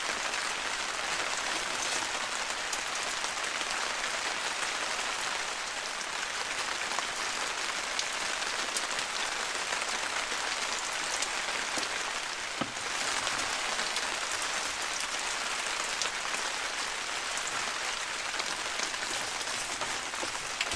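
Steady, heavy rain falling on the tarp shelter overhead and the ground around it: an even hiss flecked with fine drop ticks.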